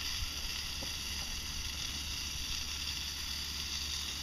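Steady sizzling of a big clam cooking, an even hiss with no break.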